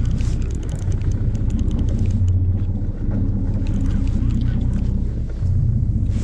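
Boat engine idling steadily, with a run of small clicks as a large conventional saltwater reel is cranked.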